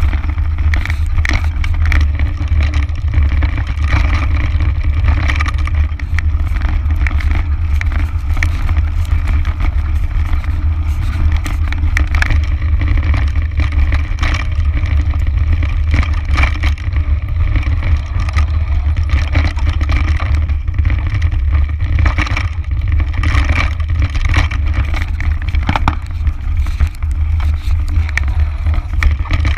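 Mountain bike running fast down a rough dirt singletrack, heard through a camera mounted on the bike: a heavy, steady low rumble of wind and vibration with constant irregular clatter and knocks as the tyres and suspension hit the bumps.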